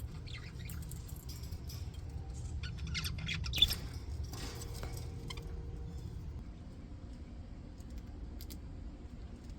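English budgie flock chirping and chattering in short, scattered calls, busiest in the first half, with one sharp click about three and a half seconds in. A low steady hum runs underneath.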